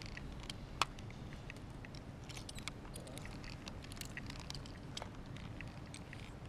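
Scattered light clicks and ticks of metal rope-access hardware, the descender and carabiners on the rope, as a worker goes over a parapet edge and puts his weight on the rope. There is one sharp click about a second in, over a steady low rumble.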